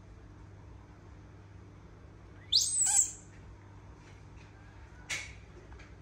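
A young monkey giving a loud, high-pitched squealing call that rises steeply and is held for about half a second, followed a couple of seconds later by one shorter, fainter squeak.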